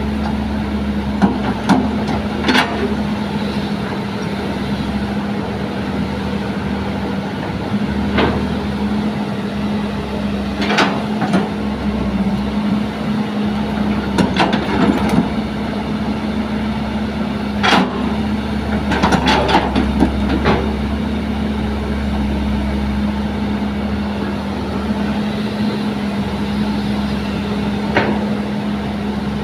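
Hitachi Zaxis 200 excavator's diesel engine running with a steady hum, while the bucket digs in sand and stones, giving sharp clanks and knocks every few seconds, bunched in short runs around the middle.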